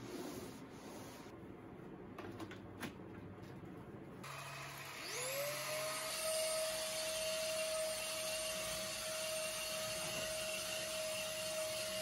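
Faint rubbing and handling sounds with a single click, then about four seconds in a Dyson cordless vacuum is switched on. Its motor spins up in a quick rising whine and settles into a steady high-pitched whine.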